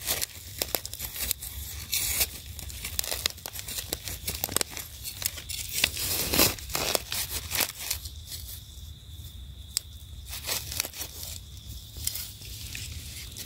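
Dry leaf litter crackling and rustling under a hand, with irregular scrapes and crunches of soil, as termite mushrooms are dug up and pulled out of the forest floor.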